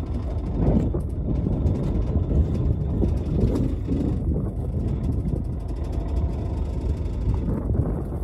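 Fishing boat's engine running with water and wind noise: a steady low rumble that swells and dips unevenly.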